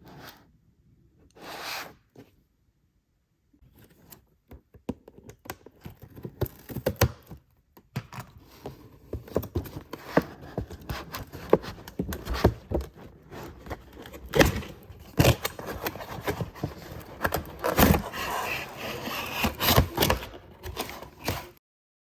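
Close-up handling noises of toys and their packaging: a dense run of clicks, taps, light knocks and scraping that builds after a few quiet seconds and stops abruptly near the end.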